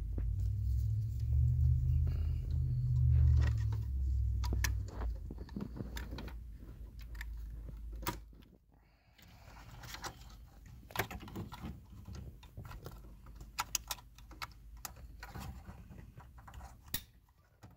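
Plastic heater control panel being handled and pushed into the dash: scattered sharp clicks and rattles of plastic clips and wiring plugs, with keys hanging in the ignition jingling. A low rumble of handling noise fills the first five seconds.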